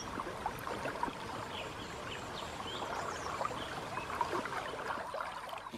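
Water trickling and flowing, steady and fairly quiet, with scattered faint short bird chirps.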